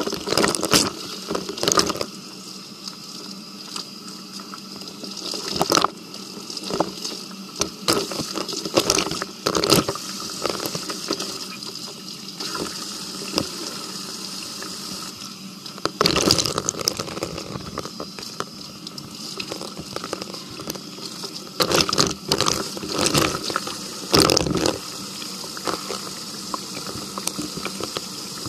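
Kitchen tap running steadily into the sink, with irregular louder splashes and swishes as hair is rinsed under the stream.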